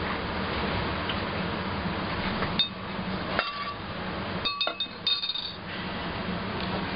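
A few light clinks of crockery, each with a short ringing tone, come in a cluster from about two and a half to five and a half seconds in. A steady low hum runs underneath.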